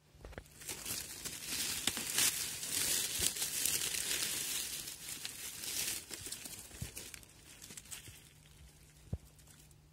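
Dry fallen leaves rustling and crackling as a hand pushes through the leaf litter and pulls up a porcini mushroom. The crackling is loudest for the first six seconds, then quieter, with a few faint clicks.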